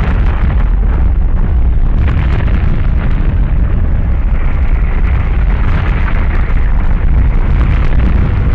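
Debris flow of mud and rocks rushing and tumbling down a channel: a loud, steady rumble.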